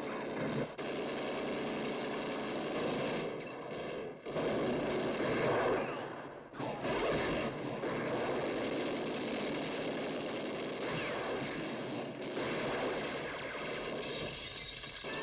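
Film battle soundtrack: sustained rapid fire from a belt-fed machine gun mixed with other gunshots, dense and almost unbroken, with a few short breaks.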